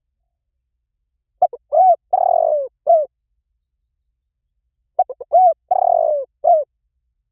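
Spotted dove cooing: two song phrases about three and a half seconds apart. Each is a few quick short notes, then a longer drawn-out coo, then one separate final note.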